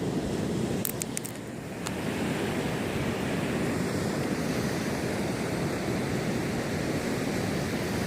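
Sea surf washing steadily on the shore, mixed with wind rumbling on the microphone; a few light clicks come between one and two seconds in.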